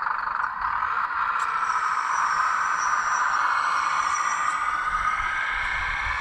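Small electric motor of a radio-controlled scale construction model running steadily with a high whine.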